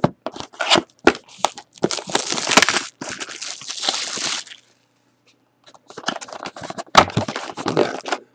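Plastic shrink-wrap crinkling and tearing as it is ripped and peeled off a cardboard trading-card box, then a short pause and more crinkling and handling of the cardboard as the box is opened, with a sharp snap near the end.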